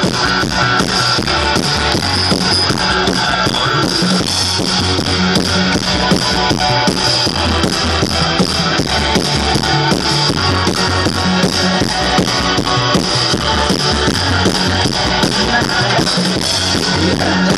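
Live rock band playing through a large outdoor PA: electric guitars and a drum kit with a steady beat.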